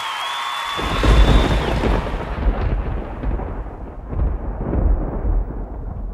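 A long, deep rumble of thunder. It sets in loudly about a second in and swells again a few times as it rolls on, losing its higher sound as it dies away.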